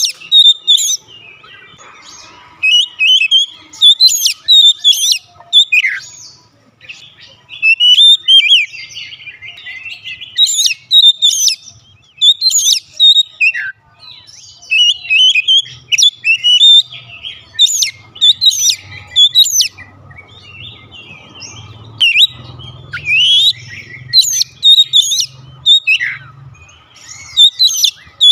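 Oriental magpie-robin singing: loud, varied phrases of whistles and chirps, some ending in sharp downward-swooping notes, broken by short pauses.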